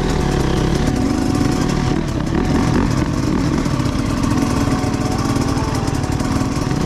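Enduro dirt bike engines running steadily as the bikes ride slowly through tall weeds.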